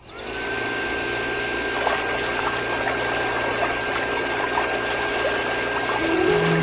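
Miniature DIY electric water pump switching on: its small motor spins up with a quick rising whine that then holds one steady pitch, over the hiss and splash of water spouting from its hose into a channel.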